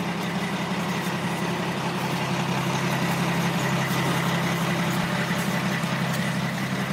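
Semi truck's diesel engine idling with a steady low hum.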